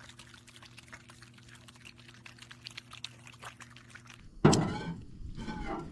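Pet opossum chewing with open mouth, a quick irregular run of wet smacking clicks over a steady low electrical hum. About four and a half seconds in, a sudden loud thunk cuts in, followed by a rougher, noisier stretch.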